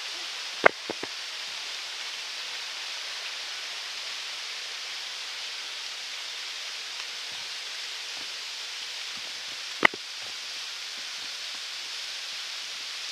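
Steady rushing hiss of water pouring down a waterfall. Two sharp clicks cut through it, one under a second in and another about ten seconds in.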